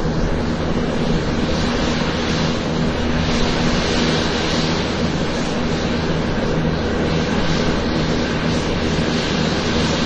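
Airplane taxiing on the ground: a steady engine rumble and hiss with a constant low hum.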